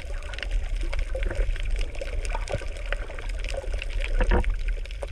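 Underwater sound over a coral reef: a steady low rumble of moving water with many scattered sharp clicks and crackles.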